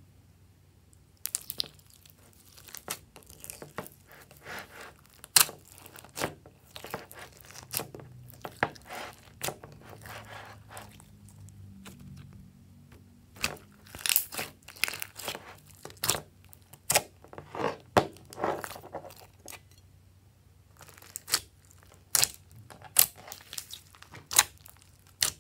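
Pink slime mixed with sprinkles, beads and glitter being stretched, pulled and pressed by hand, making crackling pops and squelches in quick runs. It starts about a second in and pauses briefly near the end.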